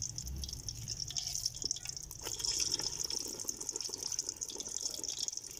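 Besan-coated naan deep-frying in hot oil: steady sizzling and crackling of the oil, with a few light clicks.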